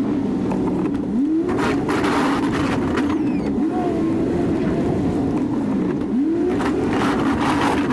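2019 Chevy 2500 pickup's engine running and revving up three times, about every two and a half seconds, as the truck works back and forth plowing snow. Twice a rushing hiss rises over the engine.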